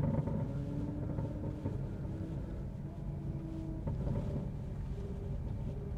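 Car engine and exhaust running at low speed during a manoeuvre, heard from inside the car: a steady deep rumble with a brief knock about four seconds in. The driver takes the noise for a broken exhaust, which is hanging loose and bouncing.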